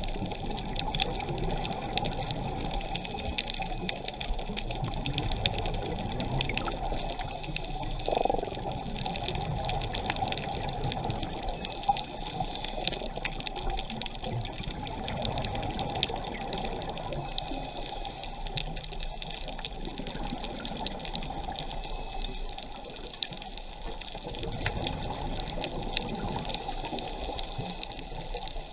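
Muffled underwater sound through a camera housing: a steady rush of water with the scuba diver's exhaled bubbles, and a short louder bubbling swell about eight seconds in.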